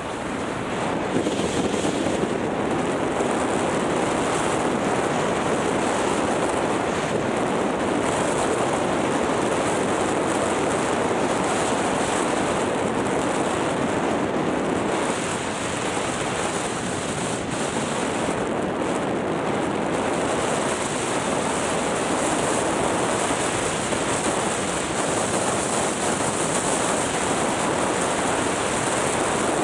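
Steady rush of wind on the microphone mixed with skis hissing over packed snow on a downhill run.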